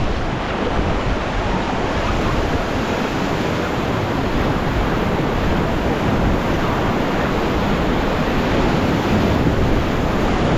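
Rushing whitewater of the Beas River as an inflatable raft runs a rapid: a steady, loud wash of churning water, with wind buffeting the microphone.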